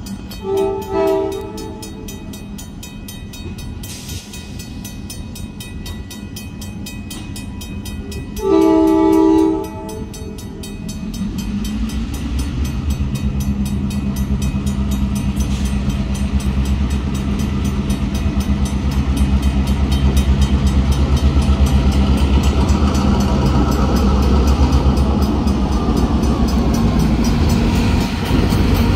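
Crossing bell ringing with rapid strokes while a diesel locomotive's horn sounds briefly near the start and again with a longer blast about nine seconds in. From about eleven seconds the rumble of the leading CN EMD GP38-2's two-stroke diesel engine builds as it rolls slowly up to and past the crossing.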